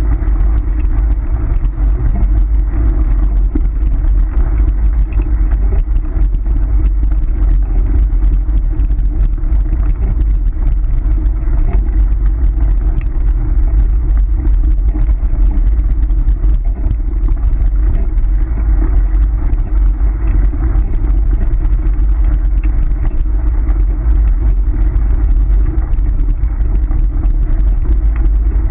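Dog scooter rolling fast over a gravel road behind a running sled dog: a loud, steady rumble of the wheels on the gravel.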